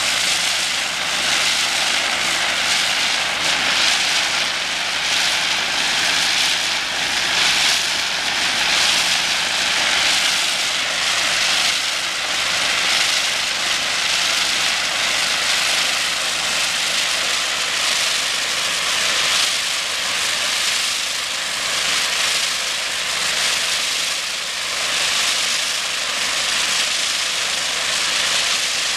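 High-pressure water jet from a hydro blasting wand hissing loudly and steadily against pavement while it strips epoxy paint striping. The hiss swells and eases slightly as the wand is moved.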